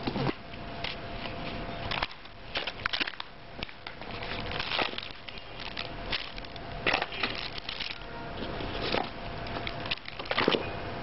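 Cardboard packaging and plastic-bagged accessories being handled and pulled out of a box: irregular crinkling, rustling and soft knocks coming in scattered clusters, loudest about ten and a half seconds in.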